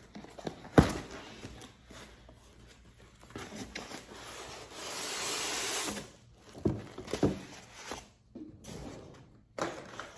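Cardboard box being opened and emptied: a sharp knock about a second in, then a long scraping hiss as the white foam packing block slides out of the tipped-up box, followed by a few knocks as the box and foam block are set down on the table.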